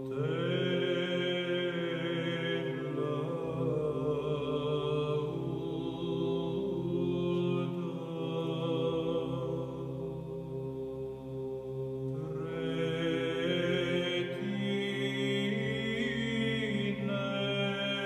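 Byzantine chant sung by a men's choir: a slow, drawn-out melismatic melody in the eighth mode over a steady held drone note (ison).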